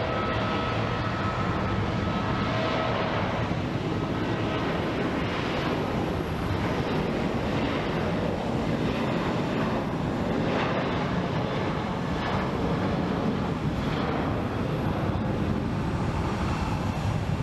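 Airliner engines running with a steady noise; a faint steady whine fades out about three seconds in.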